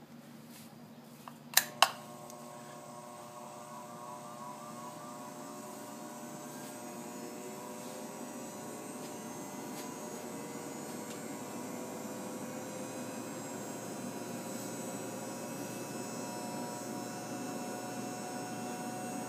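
Two sharp clicks, then the Seeburg Model K's electric pump motor starts and runs with a steady hum, its pitch rising over several seconds as it comes up to speed. The pump is building pressure, which settles at about 10 on the gauge.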